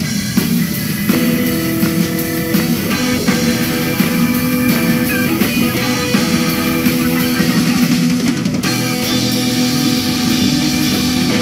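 Band playing an instrumental rock-style bumper: sustained electric guitar chords over a drum kit beat.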